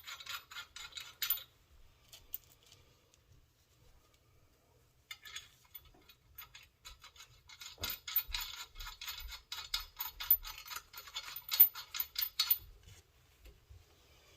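Hand ratchet clicking in quick runs as nuts are run down onto leaf-spring U-bolts: a short run at the start, another about five seconds in, and a longer run from about eight seconds until near the end.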